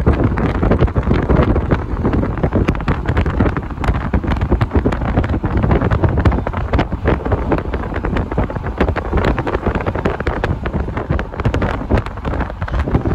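Wind buffeting the microphone from a moving car, a loud, uneven rush with the car's road noise underneath.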